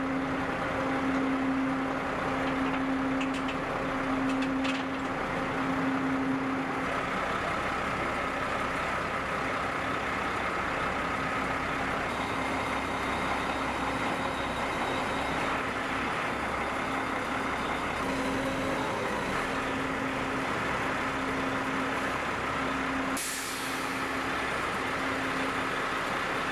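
Military truck crane's diesel engine running steadily while it hoists a load, with a warning tone that beeps on and off about once a second. Near the end comes a sudden burst of air hiss that fades away.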